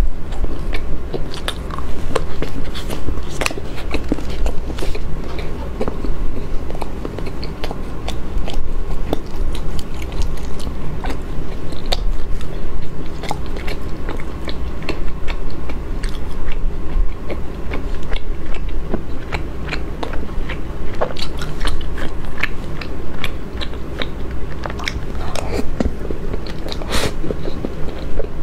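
Close-up mouth sounds of eating soft cream cake: wet chewing and lip smacks, with many small irregular clicks throughout.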